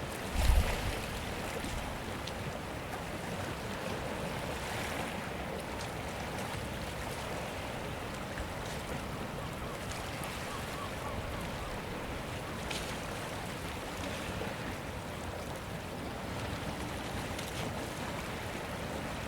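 Sea waves washing on a rocky shore, a steady wash of surf. A single low thump sounds about half a second in.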